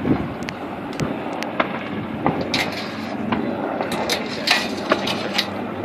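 Distant AH-1 Cobra helicopter running while it dispenses flares, with scattered sharp pops at irregular intervals, most of them in the second half, over a steady background of engine and wind noise.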